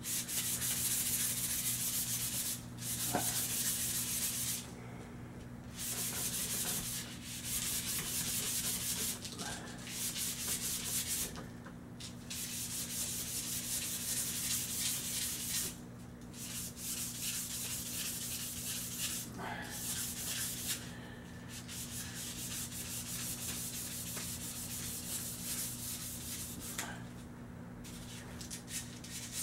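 Rapid back-and-forth hand-sanding of a steel air-rifle barrel with fine-grit abrasive, a continuous scratchy rubbing broken by a few short pauses. The barrel is being smoothed of the ridges left by factory machining before polishing.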